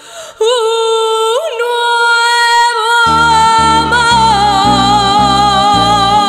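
A woman singing a long held vowel with vibrato over a song's closing bars, with two quick pitch swoops near the start and a small step down in pitch past the middle. Backing chords from the band come in about halfway and pulse steadily underneath.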